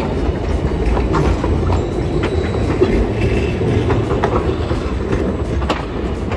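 Hiroden low-floor trams rolling past on street track: a steady low rumble with wheels clicking over rail joints, and a faint wheel squeal about halfway through.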